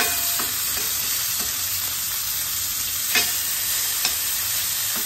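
Bacon strips sizzling steadily in a stainless steel skillet, with metal tongs clinking against the pan a few times as the strips are moved.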